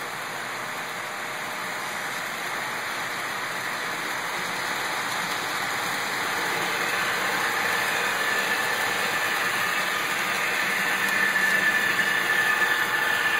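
HO-scale model freight train rolling past on the track, a steady running noise that grows louder. A high steady whine comes in about halfway and is loudest near the end as a model diesel locomotive in the train comes by.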